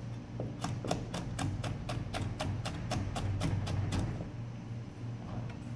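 Chef's knife julienning a red pepper on a plastic cutting board: a steady run of quick blade knocks on the board, about four or five a second, stopping about four seconds in.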